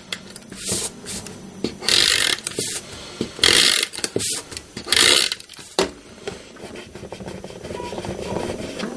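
Paper card pieces being handled and rubbed, with four short rasping strokes a little over a second apart, then a fainter steady rustle of paper.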